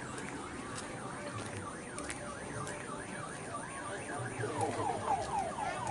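Electronic siren tones cycling through patterns: a rapid up-and-down warble about three times a second, changing a little past the middle to quick falling chirps about four a second, over a steady background hiss.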